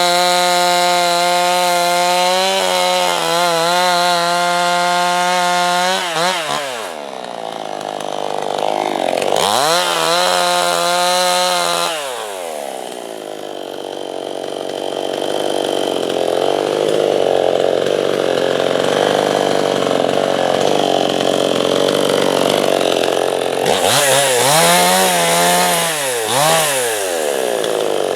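Chainsaw milling a slab freehand. The engine runs at high revs, eases off and revs back up. Through a long middle stretch it runs lower and rougher, then near the end the throttle is blipped up and down several times in quick succession.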